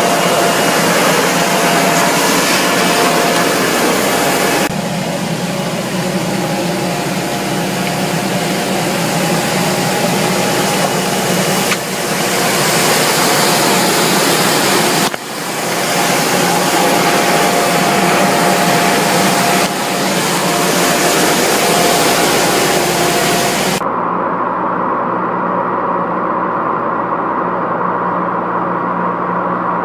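Pattenden Falcon cider apple harvester running at work: a loud, steady machine noise with a hiss and a constant hum, dipping briefly about halfway. Near the end the sound changes suddenly to a duller engine hum without the hiss.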